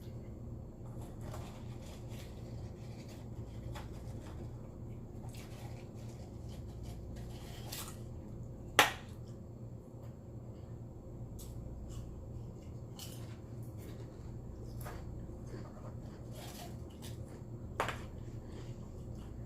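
Close-miked eating: chewing and wet mouth clicks and smacks at irregular moments, with one sharp, much louder click about nine seconds in and a smaller one near the end, over a steady low hum.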